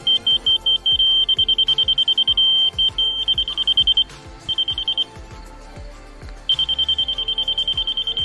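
Laser grade receiver beeping: a high electronic beep pulsing several times a second, merging briefly into a steady tone, then pausing for about two seconds before the rapid beeping returns. The fast beeps and solid tone are the receiver's signal of how the rod sits against the laser's reference height while grade is checked.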